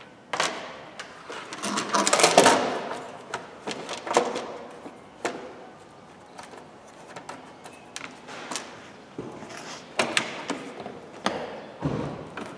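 Hands handling and fitting parts in a car's engine bay: a run of clicks, knocks and rustling, busiest about two seconds in.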